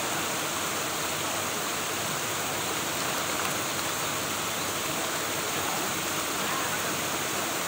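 A steady, even rush of running water.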